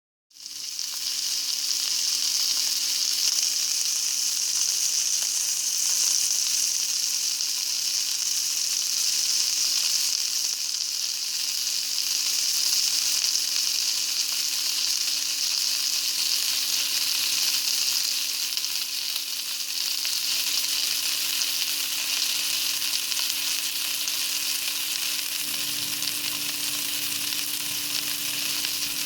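Meat sizzling as it fries in hot fat in a pan: a steady hiss that fades in at the very start and holds. A faint steady hum runs underneath.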